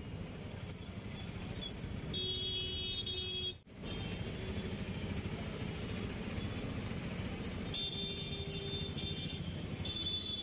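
Dense city street traffic heard from a moving auto rickshaw: auto rickshaw and motorcycle engines running in a steady rumble. A vehicle horn is held for about a second and a half about two seconds in, and sounds again near eight seconds and at the very end.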